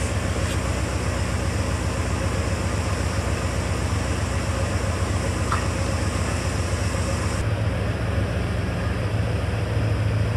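1984 Corvette's Crossfire Injection 350 small-block V8 idling steadily at about 900 RPM, a fast idle while the engine is still warming up from a cold start, heard from inside the cabin. About seven seconds in, the upper hiss drops away and the low hum strengthens.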